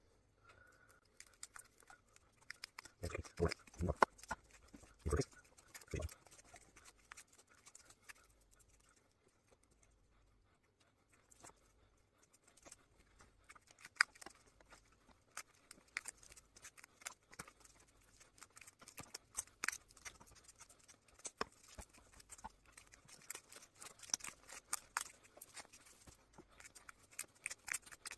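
Insulation tape being peeled and unwound by hand from a degaussing cable's copper coil. It makes irregular crackles and small clicks, with a few louder handling knocks in the first few seconds and a short lull around the middle.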